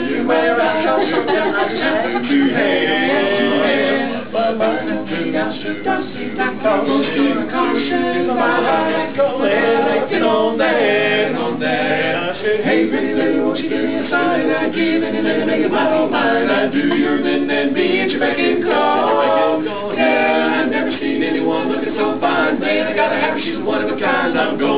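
Male barbershop quartet singing a cappella in four-part close harmony, with no instruments.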